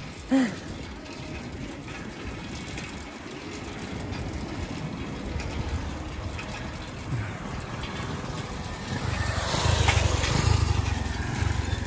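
Steady wind and road noise during a bicycle ride. Near the end a car passes very close, and its rush of engine and tyre noise swells to the loudest point, from about nine to eleven and a half seconds in.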